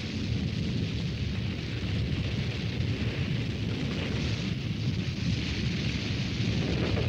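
Sound effect of a large fire burning: a steady, dense rush of noise that holds level throughout.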